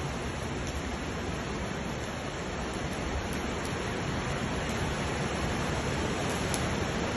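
Flash-flood water rushing down a street, a steady, even rush of water that grows slightly louder about halfway through.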